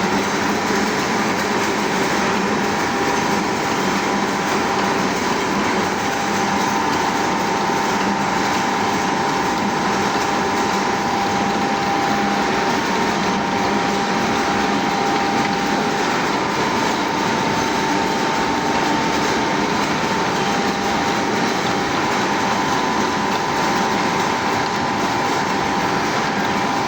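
Lathe machine running steadily with a constant high whine over its mechanical noise.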